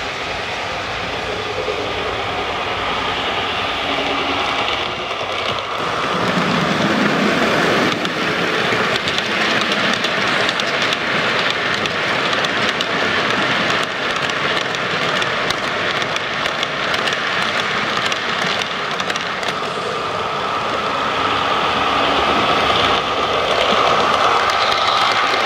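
Model trains running under DCC sound: diesel engine sound played through the locomotives' loudspeakers, mixed with the clicking of wheels over rail joints and pointwork, growing gradually louder as a freight train of covered steel-coil wagons passes close by.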